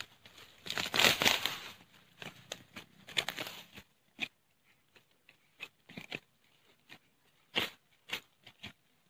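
Digging in grass and loose soil around a wild gadung yam vine: a burst of rustling and scraping about a second in, then scattered short scrapes and snaps.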